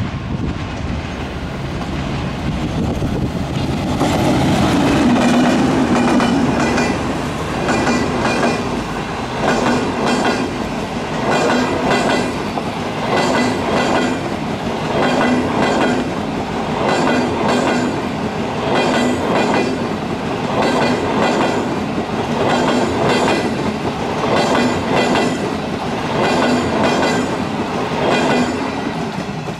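Passenger train of Trenes Argentinos blue-and-white coaches hauled by the CKD 8G diesel locomotive passing at close range. It is loudest about four to six seconds in as the locomotive goes by, then the coach wheels run over the rail joints in a regular clickety-clack, about one knock a second.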